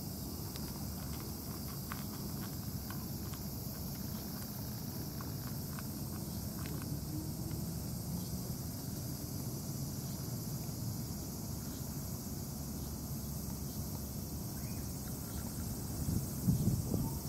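A cat crunching dry kibble, heard as faint small clicks over the first several seconds, over a steady low rumble and a high, steady hiss of insects. A louder low rumble swells briefly near the end.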